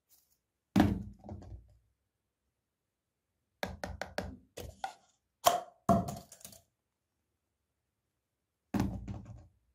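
A small toy football dropped into a toilet bowl, landing with a thunk and a few quick bounces, about a second in and again near the end. In between, a run of several quick knocks.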